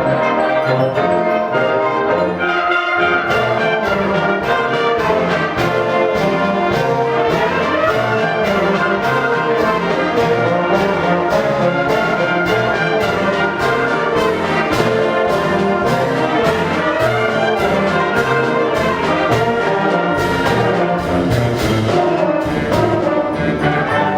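High school concert band playing, with the brass section to the fore. From a few seconds in until near the end, a percussion part keeps a steady beat of crisp high strokes over the band.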